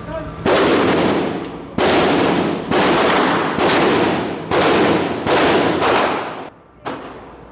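Eight gunshots from a firearm on a shooting range, fired one after another at roughly one per second, each with a long echoing tail.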